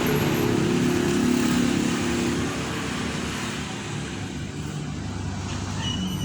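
A motor vehicle's engine running steadily over a broad hiss, loudest in the first couple of seconds and then easing off.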